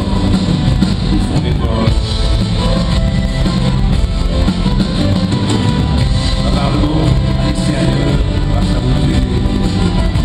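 Live rock band playing a song, with a man singing lead into a handheld microphone over it.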